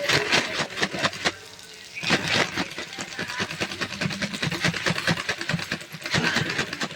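Spoon scraping and knocking against a frying pan in quick repeated strokes as poha is stirred into the fried vegetables, with a short pause about a second and a half in.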